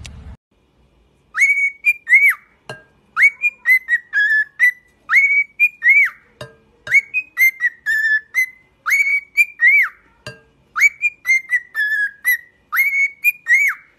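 Cockatiel whistling a tune: a short phrase of quick rising and falling notes, repeated about every two seconds, seven times over, with a soft knock between some of the phrases.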